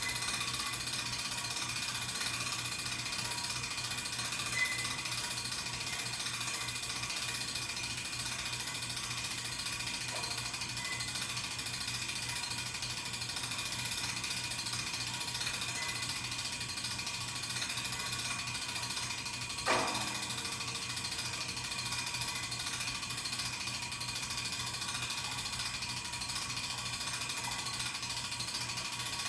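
Steady, rapid mechanical clicking over a low hum, with one sharp knock about twenty seconds in.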